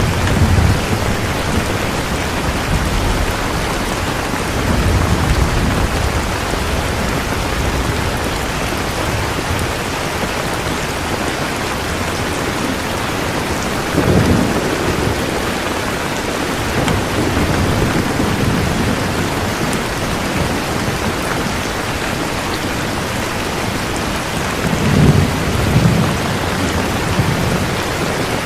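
Steady rain with several low rolls of thunder, one at the start, one about halfway through and one near the end.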